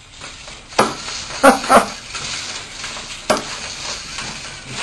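LEGO Mindstorms robot's motors and plastic gears running as the robot moves: a gritty whir with a few sharp clacks, the loudest about a second and a half in.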